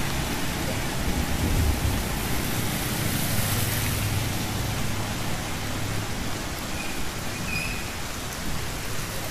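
Steady rain falling on a wet street, with a motorbike engine humming past during the first half and then fading.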